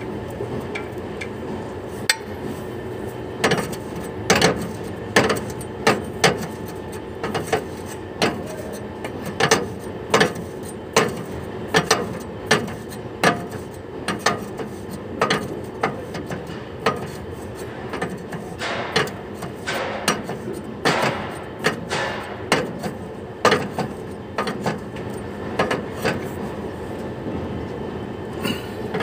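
A steel combination wrench knocking and clanking on the air-line fittings of a Mercedes truck's air dryer: repeated sharp metallic knocks, irregular, about one or two a second, over a steady low hum.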